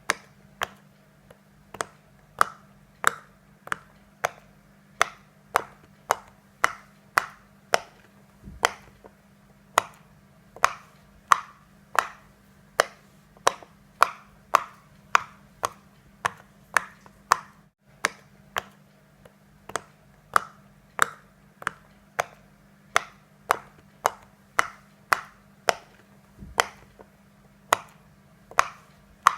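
A silicone pop-it fidget toy being tapped: a long run of sharp clicks, about two a second and unevenly spaced, over a faint steady hum.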